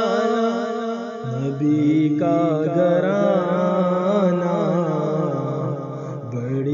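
A man's voice singing an Urdu naat, drawing out long wavering, ornamented vowels between the words of the verse.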